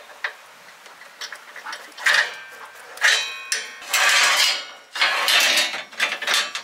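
Metal clanking, scraping and rattling as the locking pin of a hitch-mounted motorcycle carrier is pulled and its slotted metal loading ramp is slid out: a handful of loud ringing clatters from about two seconds in.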